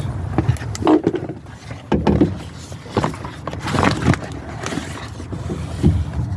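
Irregular scrapes, clicks and knocks of handling, over a steady low rumble.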